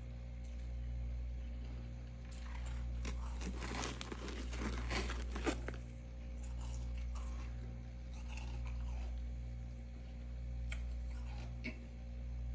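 Packed freezer frost being crunched and scraped up by a gloved hand, a dense run of crunches from about two to six seconds in, then a few scattered clicks. Under it a steady low hum that swells and fades about every two seconds.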